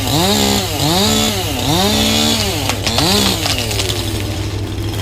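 Chainsaw engine revving up and falling back again and again, about once a second, stopping about three and a half seconds in.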